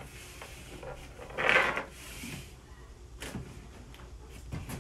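A cardboard mailing box being slid and picked up off a workbench: a short scraping rustle about a second and a half in, then a couple of light knocks.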